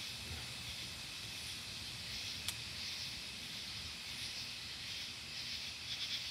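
Steady high hiss of outdoor night ambience under a dark, stormy sky, with a faint low rumble beneath it and a single sharp click about two and a half seconds in.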